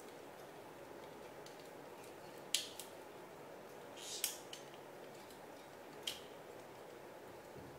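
Hard plastic parts and joints of a 1/60 Perfect Grade Gundam RX-178 Mk-II model clicking as its arm is moved and posed by hand: a handful of short sharp clicks, the three loudest about two seconds apart.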